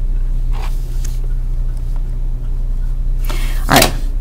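A steady low hum runs throughout, with a faint pencil stroke on paper early on. Near the end comes a louder, brief scraping as the plastic drafting triangle is slid off the drawing sheet.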